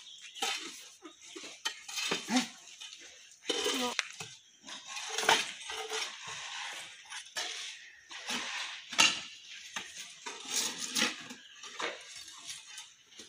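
Hand tools scraping and prising packed clay mud out of an excavator's steel crawler track, with irregular scrapes and sharp metallic clinks against the track links.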